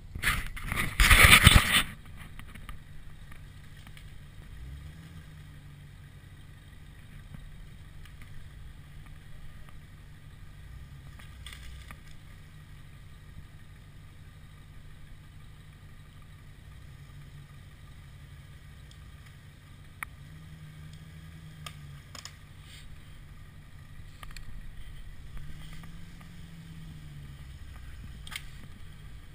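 Jeep Wrangler engine running at low revs while crawling off-road, a low steady drone with a few brief rises in revs. A short loud burst of noise about a second in.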